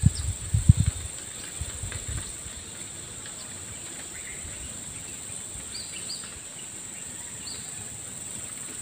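Steady high-pitched drone of insects, with a few brief chirps over it. A few low thumps in the first second are the loudest sound.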